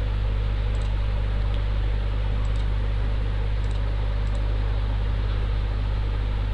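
Steady low electrical hum with hiss, and a few faint computer mouse clicks.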